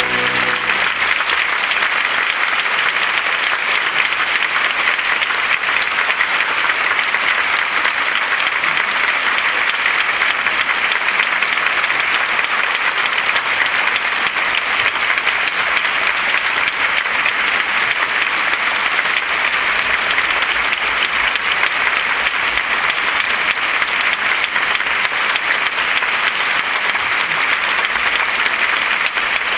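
Theatre audience applauding steadily after a ballet performance. The music's last chord dies away in the first second.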